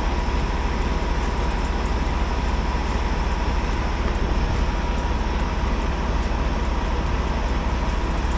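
Diesel semi-truck engine idling, a steady low rumble with a thin steady hum above it.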